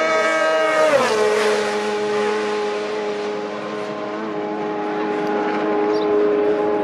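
Racing motorcycle passing flat out: its engine note drops sharply in pitch about a second in as it goes by, then holds a steady, lower note as it carries on down the straight at full throttle.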